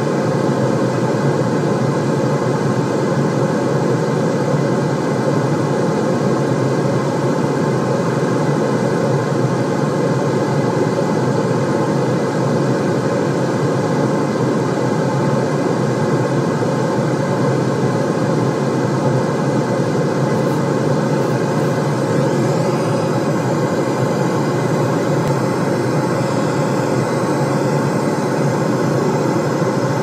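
White-noise track: a steady, deep rushing noise that holds level without a break or change.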